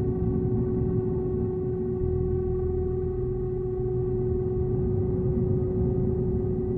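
Dark ambient drone music: one steady held tone over a low, churning rumble.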